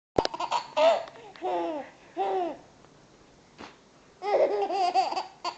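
Baby boy laughing in short, high-pitched bursts: several in quick succession at the start, then two single laughs, and a longer run of laughter from about four seconds in.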